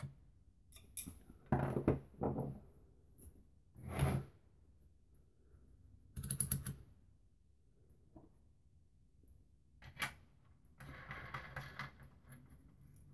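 Tools and parts handled on a wooden workbench: a few knocks and clatters as screwdrivers are set down, then a rubbing, scraping noise near the end as a hand works the plastic terminal knobs on the fence energizer, with scattered sharp clicks between.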